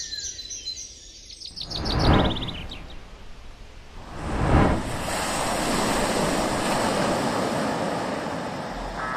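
Birds chirping fade out, then two swells of rushing noise rise and fall, like surf washing in, and settle into a steady rushing.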